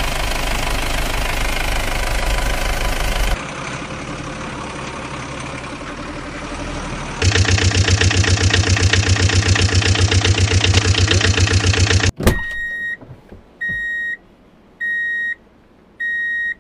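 Truck engine sound effect running with a fast pulsing beat, changing character twice, then cut off after a click about twelve seconds in. A vehicle reversing alarm then beeps steadily, about four half-second beeps a second apart.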